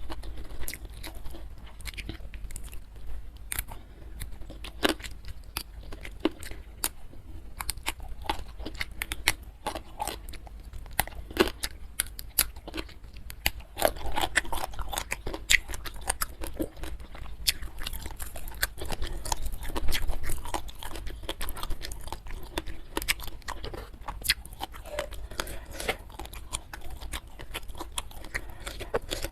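Close-miked eating: steady chewing with many small crisp crunches and mouth clicks.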